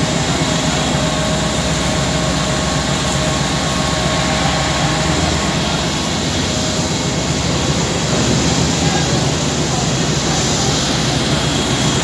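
A steady, loud rushing roar that does not let up, with a few faint steady tones running under it.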